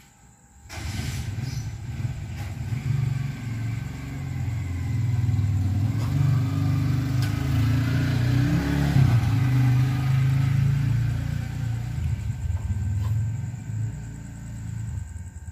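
Black cat purring right against the microphone: a loud, steady low rumble that starts about a second in and eases off near the end.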